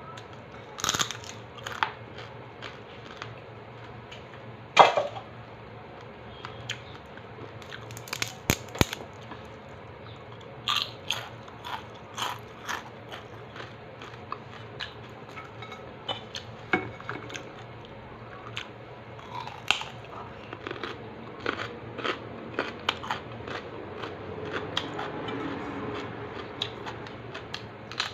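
Close-up crunching and chewing of crispy fried chicharon, with irregular sharp crunches throughout and a louder bite about five seconds in.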